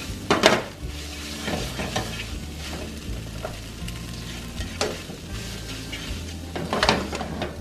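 Ramen noodles with sausage and vegetables sizzling as they pan fry, with a utensil scraping and tossing them around the pan in irregular strokes, the loudest about half a second in and near the end.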